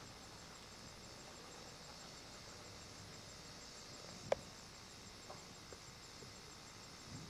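Quiet steady hiss, broken by one sharp click a little past the middle and a couple of faint ticks after it.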